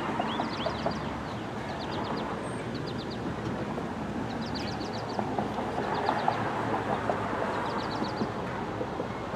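Outdoor ambience: small birds chirping in short rapid series over a steady low rumble of traffic.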